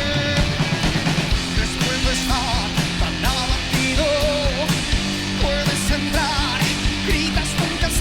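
A rock band playing: distorted electric guitars, bass and drum kit with a steady beat, and a voice singing in a few phrases.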